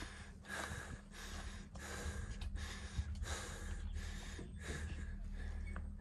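A climber's heavy, rapid breathing close to the microphone, about two breaths a second: the laboured breathing of a steep mountain ascent.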